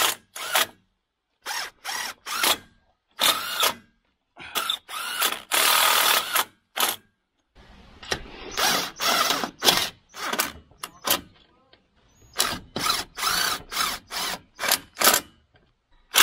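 Drill driving screws to fasten hinges, in a series of short runs of about half a second to a second and a half with pauses between, the motor's pitch rising as some runs start.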